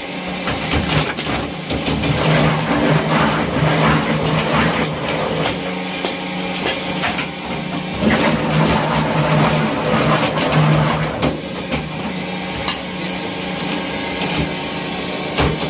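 Plastic crusher machine running: its motor gives a steady hum while irregular sharp clicks and knocks of material being chopped clatter over it throughout.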